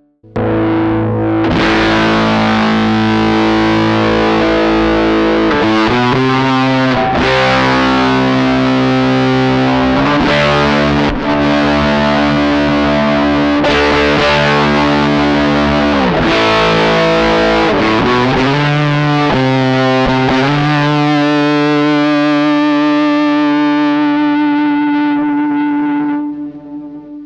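Electric guitar played through a budget pedalboard with heavy distortion, strumming sustained chords that change every few seconds. The last chord rings out and fades away near the end.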